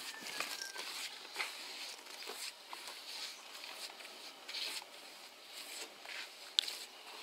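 Flat paint brush swept repeatedly over rough wooden boat planks, spreading used engine oil, each stroke a short scratchy swish. One sharp click near the end.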